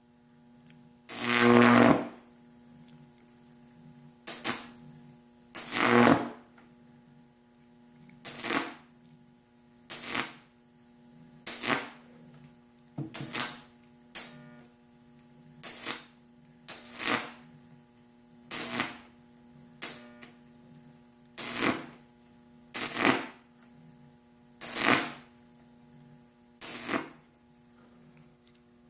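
Microwave oven transformer arc generator humming steadily, with a high-voltage arc sounding in short bursts of about half a second, roughly every one and a half seconds.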